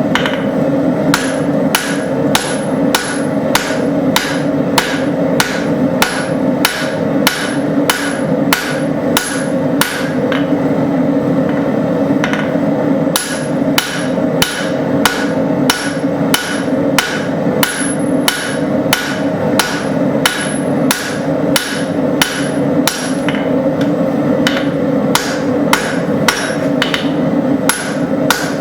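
Hand hammer striking hot leaf-spring steel on an anvil, drawing out the taper of a cross peen hammer head. The blows are sharp and ringing, about two a second, with a short pause about ten seconds in, over a constant low roar.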